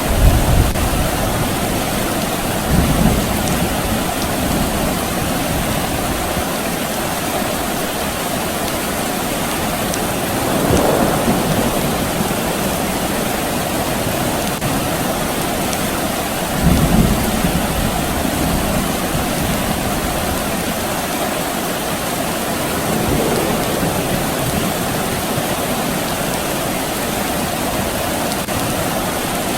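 Steady rain falling, with distant thunder rumbling low several times: near the start, at about 3 seconds, around 11 seconds, a stronger roll at about 17 seconds, and a fainter one at about 23 seconds.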